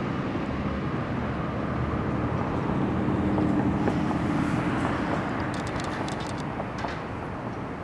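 Fire vehicle's engine running as it passes: a steady low rumble that grows louder to about four seconds in, then eases off.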